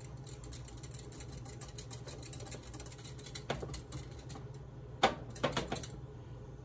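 Wire whisk clicking rapidly against the sides of a small glass cup as a chunky sauce is stirred, with a couple of sharper knocks partway through. A steady low hum runs underneath.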